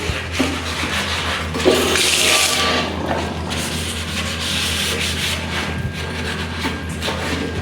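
A sponge scrubbing a surface in repeated, irregular rubbing strokes.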